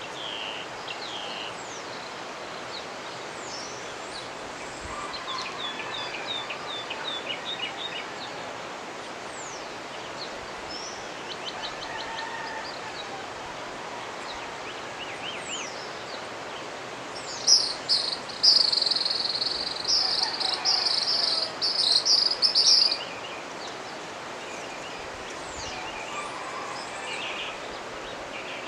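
Steady rush of a mountain river, with several birds chirping and calling over it. About seventeen seconds in, one bird sings a loud, fast run of high notes for about five seconds.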